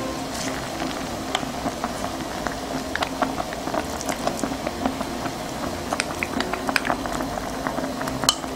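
Anchovy stock at a rolling boil in a black earthenware pot, bubbling with a steady stream of small pops. Near the end a wooden spoon goes into the pot, with one sharp knock.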